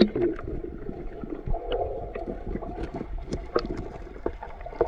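River water splashing and sloshing, with many small irregular splashes, as someone moves through it by hand and foot.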